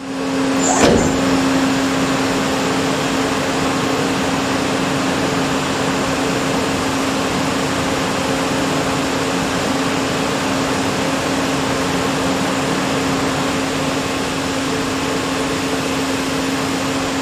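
CNC lathe running, a steady machine noise with a constant hum and hiss, typical of the spindle turning and coolant flowing during machining. Its brief sweep about a second in is likely the tool moving in.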